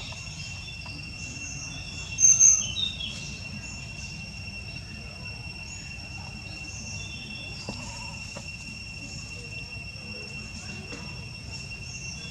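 Steady high-pitched insect drone with scattered short bird-like chirps over a low background rumble, and one loud, brief high chirp about two seconds in.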